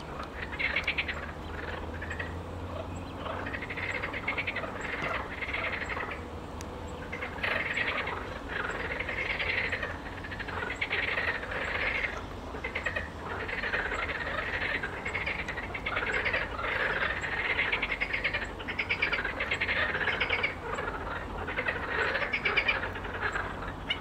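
Chorus of marsh frogs, many overlapping rattling, pulsed croaks coming in bursts one after another.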